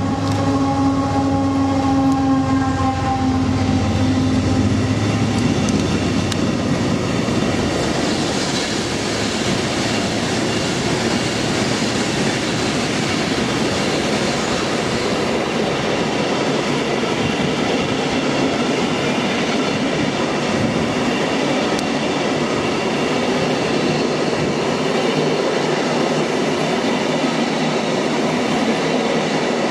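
A train running past on the rails with a steady, continuous wheel-and-rail rattle and clickety-clack. In the first few seconds a set of steady tones sounds over the rattle, then fades out.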